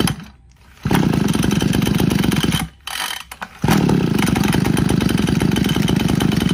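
Mitsubishi TL261 26cc two-stroke backpack brush cutter engine revved hard in repeated bursts of about two to three seconds. It drops off sharply between bursts, with one short blip in the middle.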